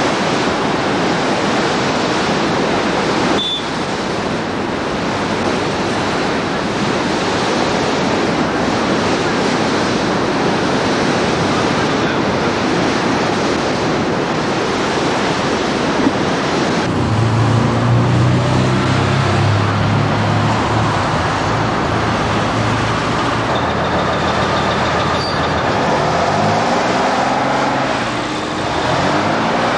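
Steady outdoor rushing noise on a camcorder microphone: rough surf and wind at first, giving way to road traffic. A motor vehicle engine passes about halfway through, and another passes near the end with a sliding change in pitch.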